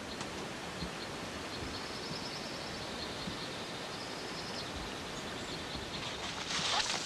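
Steady outdoor noise with a faint run of high, evenly repeated chirps. Near the end comes a louder, noisy rustle with a few sharp crackles.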